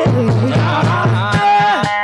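Music: a melody line over a regular drum beat.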